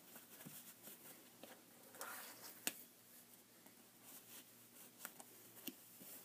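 Faint rustling and light clicks of woven strips being tugged tight by hand, with one sharper click about two and a half seconds in.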